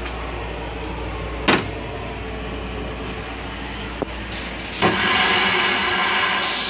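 LIRR M9 railcar toilet: the seat knocks up sharply about a second and a half in, there is a click near four seconds, and from about five seconds the flush starts with a loud rushing hiss of rinse water. A steady low rumble of the train runs underneath.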